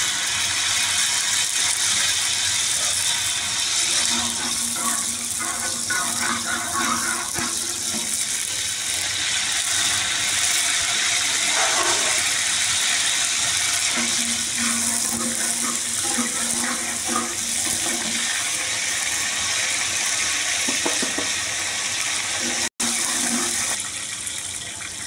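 Steady hissing sizzle of herbs and whole spices frying in hot oil in a large aluminium pot as they are stirred in. There is a momentary dropout near the end.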